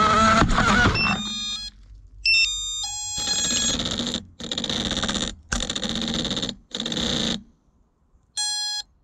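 FPV quadcopter motors whining, then cutting off about a second in. Stepped electronic beeps follow, then four short bursts of motor noise with gaps between them, and a last beep near the end.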